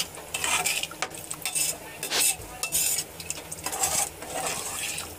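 A metal ladle stirring a watery rice-and-lentil khichdi in a metal pressure cooker. It makes repeated, irregular scraping strokes against the pot, and the liquid sloshes.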